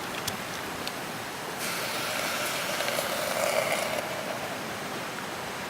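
Hot-pot soup base being poured into a pot for about two seconds, over the steady noise of a river.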